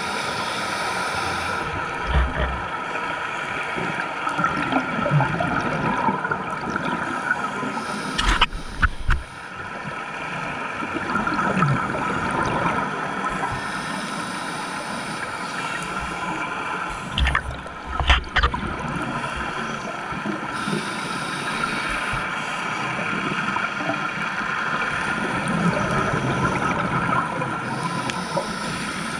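Underwater sound picked up through a diving camera housing: a steady rushing hiss, broken twice by the bubbling burst of a scuba regulator exhaling.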